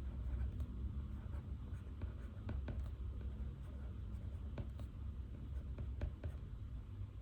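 Pen writing on paper, a run of light scratchy strokes at irregular intervals over a steady low room hum.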